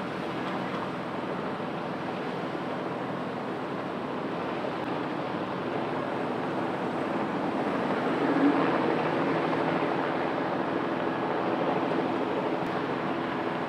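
Single-engine turbine light helicopter running with a steady drone, growing gradually louder through the second half.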